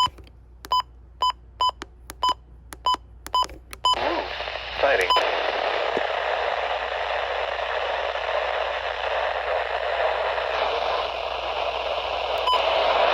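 Short electronic beeps from a radio receiver, about eight in the first four seconds, then a steady hiss of radio static from about four seconds in, broken by two more single beeps.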